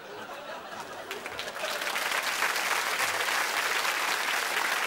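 Audience applause in a hall, swelling over the first couple of seconds into steady clapping.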